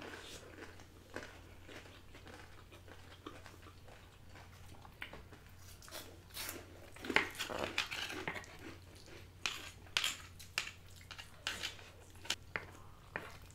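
Close-miked mouth sounds of eating macaroni and cheese and Flamin' Hot Cheetos: wet chewing and smacking with irregular crunches and clicks that come more often from about halfway on. A low steady hum runs underneath.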